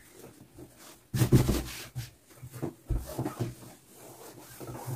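Hands smoothing cloth and an electric iron sliding over a cotton shirt on a cloth-covered table, giving rustles and several soft knocks and brushes at irregular moments.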